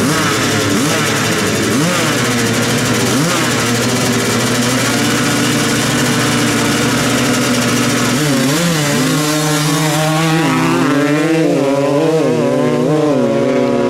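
Two-stroke 250 dirt bikes revving at the start line of a drag race, then accelerating hard away. From about 8 s in, the engine pitch rises and falls repeatedly as they pull down the strip.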